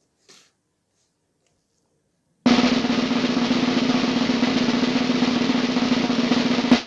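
After about two seconds of near silence, a fast snare drum roll starts suddenly over a steady note. It runs for about four seconds and closes on a louder hit.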